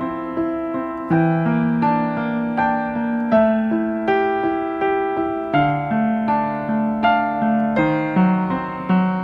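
Slow, gentle background music on piano or electric piano: soft notes and chords struck at an unhurried, even pace, each ringing and fading.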